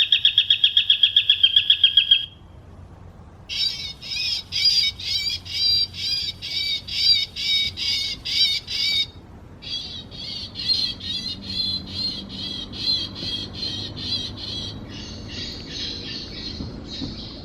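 Bird calls in repeated series: a fast run of sharp, high notes about ten a second, then after a short pause, runs of squawking calls roughly two a second.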